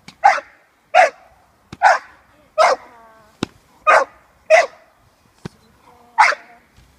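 A six-month-old American Staffordshire terrier puppy barking in protection-work agitation: seven short, sharp barks, with two sharp cracks between them around the middle.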